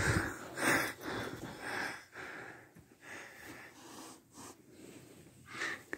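A small dog sniffing and snorting as it hunts for an ice cube in the carpet: short, irregular breathy puffs, quieter in the second half, with one more near the end.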